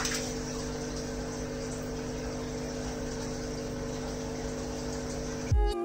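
Aquarium aeration running steadily: an air pump humming and an air stone bubbling in the tank water. Background music with a strong beat starts near the end.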